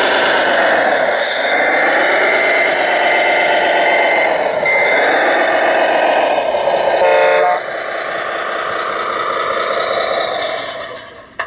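Scale RC truck's engine sound running with the revs rising and falling, with a short horn toot about seven seconds in; the engine sound then fades toward the end.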